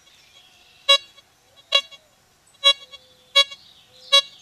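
Bliss Tool LTC64 metal detector giving five short, same-pitched beeps, about one per coil sweep, as it passes over a deeply buried target at low sensitivity; the signal is intermittent.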